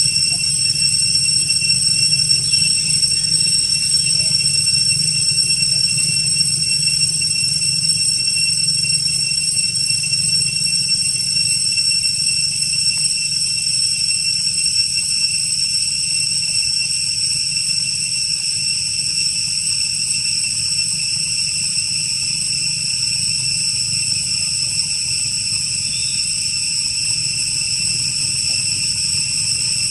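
A steady chorus of insects: several high-pitched tones held without a break, over a low hum.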